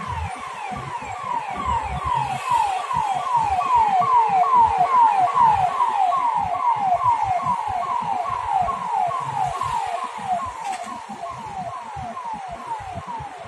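Emergency vehicle siren passing along the street below: rapid repeated falling sweeps, about three a second, growing louder toward the middle and then fading as it moves away.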